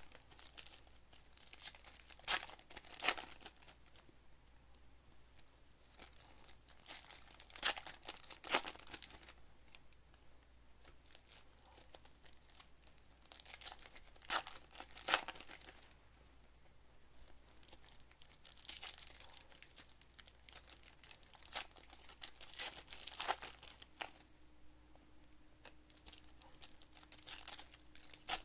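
Foil wrappers of Panini Select basketball card packs torn open and crinkled by hand, in sharp bursts every few seconds.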